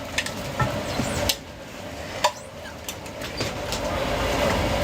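Kitchen clatter at a food stall: scattered knocks and clinks of utensils and containers being handled, over a steady low hum that grows louder near the end.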